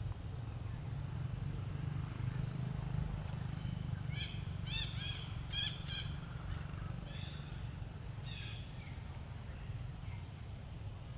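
A bird calling: a quick run of short, arched notes about four seconds in and a few more a couple of seconds later, over a steady low rumble.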